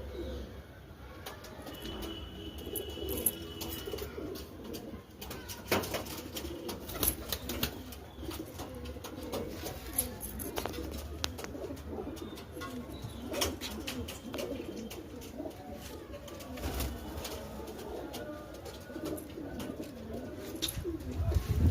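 Domestic pigeons cooing continuously in low, overlapping warbles, with scattered sharp clicks throughout.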